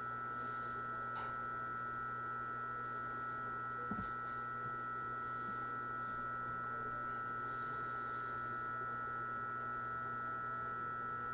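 Steady electrical hum from an E129-series electric train standing at the platform: several fixed high tones over a lower hum, unchanging throughout, with one faint knock about four seconds in.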